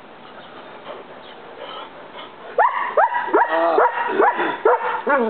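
Collie barking: after a quieter first half, a quick run of about eight short, pitched barks in under three seconds, running into a drawn-out whining bark at the very end.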